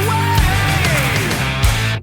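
Rock music with electric guitar, whose notes bend and slide, over drums.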